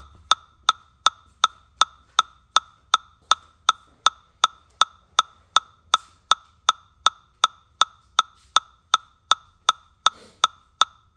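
Metronome clicking a steady tempo, a little under three even clicks a second with no accented beat.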